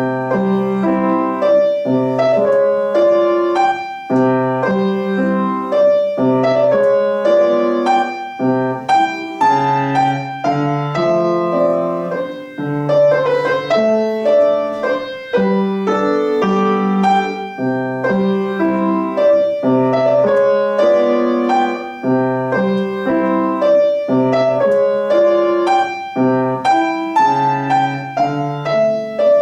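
Solo keyboard instrument playing a classical melody over sustained bass notes, with notes changing several times a second.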